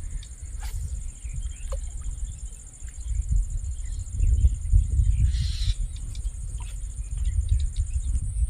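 Marsh ambience: a steady high-pitched insect drone with scattered short bird chirps over an uneven low rumble. A brief hiss comes about five seconds in.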